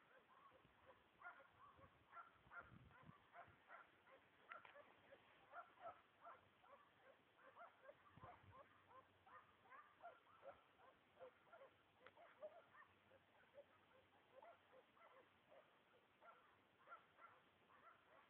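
Faint, dense chorus of many short animal calls overlapping, several a second, with two brief low rumbles early on and near the middle.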